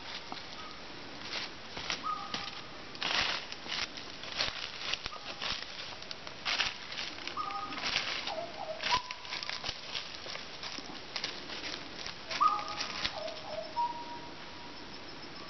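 Cassowaries walking through dry leaf litter, with irregular rustling and crackling steps. A few short whistled bird calls, each dropping in pitch in steps, come in near the start, in the middle and toward the end.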